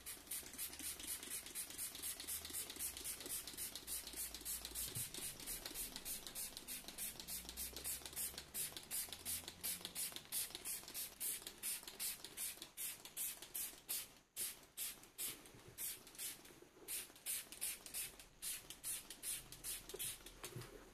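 Trigger spray bottle of suede and nubuck protector pumped rapidly, giving short hissing squirts about four a second onto suede boots, with a brief break about fourteen seconds in.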